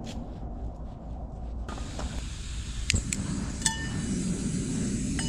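A few sharp metallic clicks and one short ringing clink as a small metal wok is handled over a portable gas stove, over a low steady rumble.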